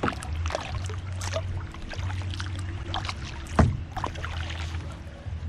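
Double-bladed kayak paddle stroking a solo canoe along at a steady cadence, the blades dipping and splashing in the water. There is one sharp thump about three and a half seconds in.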